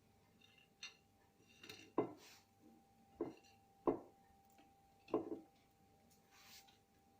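Kitchenware being handled: five sharp knocks and clinks at uneven intervals, the loudest about two, four and five seconds in, with a faint steady hum underneath.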